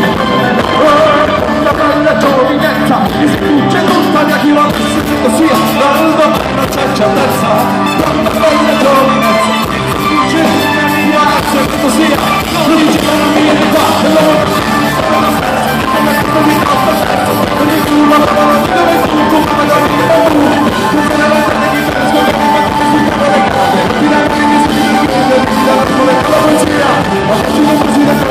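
Live band playing a song with acoustic and electric guitars, a mandolin and a drum kit, and a man singing.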